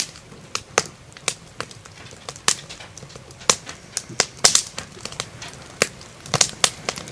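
Metal fork clicking and scraping against a plate during a meal: irregular sharp clicks, about one or two a second.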